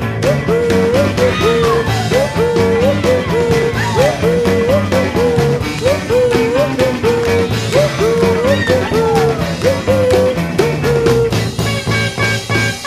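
Rock music with a steady beat and a repeating riff of bending notes. The riff drops out about a second before the end.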